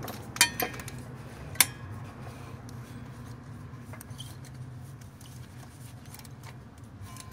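Sharp metal clinks of a socket and extension working a new spark plug tight in a Chevy 4.3-litre V6: a few clicks in the first two seconds, then only faint ticks, over a low steady hum.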